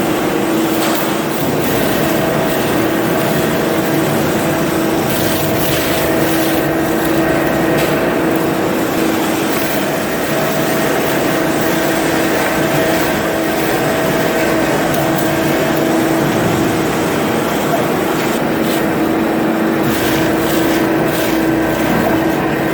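Double-shaft crusher running, a steady motor and gearbox whine over a dense grinding noise, with scattered sharp cracks as wood is shredded.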